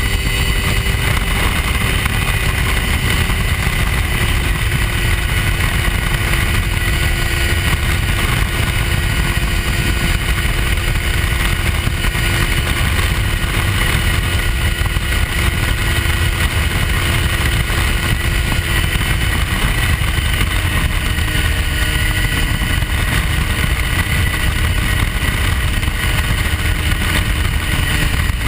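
Hy-Tek Hurricane ultralight airplane's engine and propeller running at a steady drone in flight. The pitch sags slightly over the stretch, over a constant low rumble.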